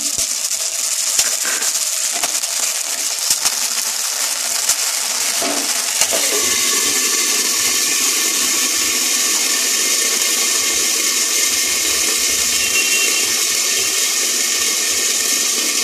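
Diced potatoes frying in hot refined vegetable oil in a kadai: a loud, steady sizzle, with a few light knocks in the first few seconds.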